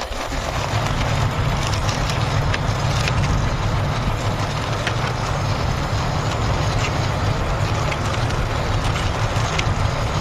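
Large plastic toy army tanker being pushed along a surface by hand, giving a steady rolling rumble with scattered small clicks.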